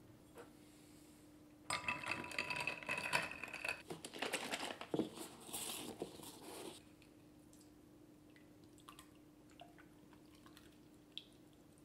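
Paper heavy-cream carton crinkling and crunching as it is handled and opened, for about five seconds starting near two seconds in. After that it is quiet, with only a few faint small ticks while the cream is poured into a glass bowl.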